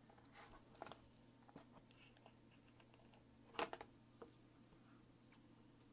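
Near silence with a few faint, scattered clicks and taps of metal tweezers handling tiny model chain links on a cutting mat; one sharper click about three and a half seconds in.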